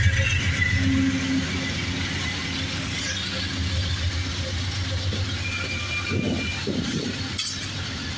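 Amtrak Southwest Chief pulling out of the station: the diesel hum of its trailing GE P42 locomotive passes first, then its bilevel Superliner passenger cars roll by with a steady low rumble of wheels on rail.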